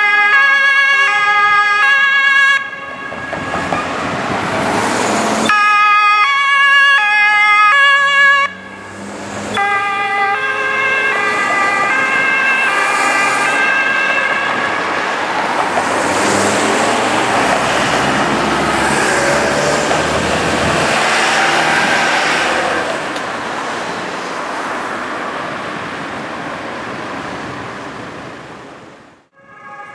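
German police two-tone sirens alternating between two pitches as police vans pass in convoy, the sound cutting abruptly between takes. In the second half the sirens give way to engine and traffic noise from the passing vehicles.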